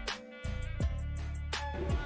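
Background music with a steady drum beat, about two strokes a second, over held tones.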